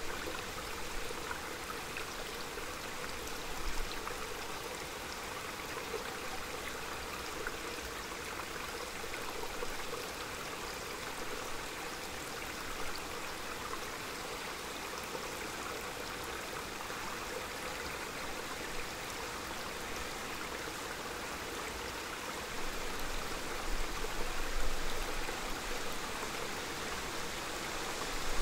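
A small mountain stream running over stones, a steady rushing trickle. A gust of wind comes through near the end.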